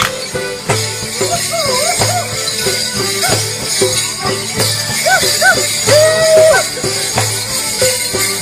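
Border Morris dance music: a folk band of fiddles, guitars and a drum playing a tune over a steady beat, with the dancers' wooden sticks clacking together and bells jingling.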